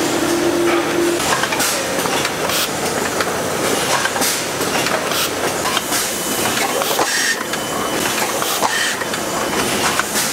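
Ice cream cup-filling line running, a steady mechanical clatter full of clicks and knocks from the conveyor and filling heads. A low hum underneath stops about a second in.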